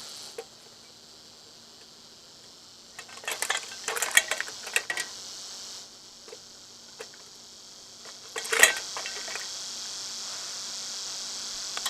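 Metal parts clinking and clattering as ceiling fan pieces are handled, in a cluster of sharp knocks a few seconds in and one louder clank later. Behind them runs the steady high buzz of katydids, fading out for a while and coming back strongly near the end.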